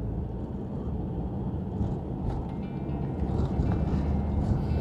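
Steady low road and engine rumble of a car driving in city traffic, heard from inside the car's cabin.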